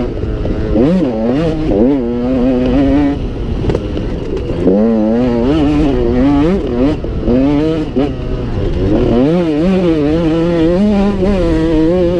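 Dirt bike engine running hard on a rough dirt trail, its pitch climbing and dropping again and again with the throttle and gear changes, wavering as the bike bounces over the ground.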